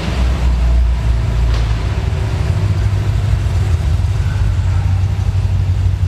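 A classic car's engine idling with a steady low rumble as the car creeps in at walking pace, inside a concrete parking garage. There is one short click about a second and a half in.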